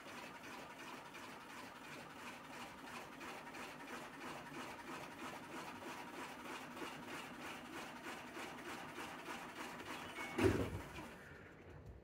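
LG TurboDrum top-load washing machine drum spinning, with a rhythmic rubbing noise repeating a few times a second, once per drum revolution; the cause of the rub is unknown. About ten seconds in there is a single loud thump, and the spin noise then dies down as the drum slows.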